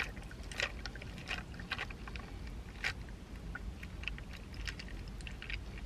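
Iced matcha latte poured from one plastic cup into another cup packed with ice, the ice cubes giving scattered small clicks and crackles as the drink runs over them, above a low steady rumble.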